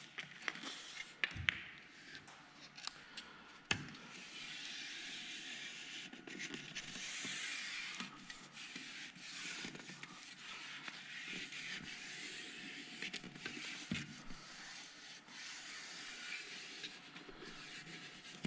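Faint, steady rubbing and scraping as a vinyl graphic is smoothed down along the edge of a race car body panel, with a couple of light knocks in the first few seconds.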